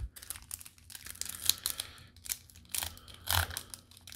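Foil wrapper of a baseball trading-card pack being crinkled in the hands and torn open, a scatter of short irregular crackles and rips.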